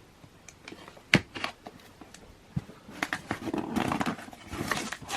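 Packaging handled while a box is opened: a sharp knock about a second in, then crinkling and rustling of the wrapping from about three seconds in.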